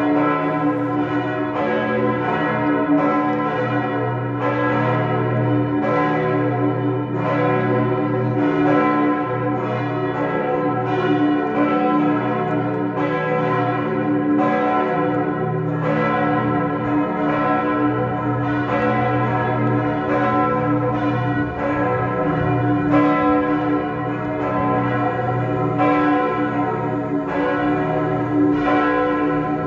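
Lund Cathedral's church bells ringing to call the congregation to High Mass. Several bells swing together, their strikes overlapping in an uneven stream over a steady low hum.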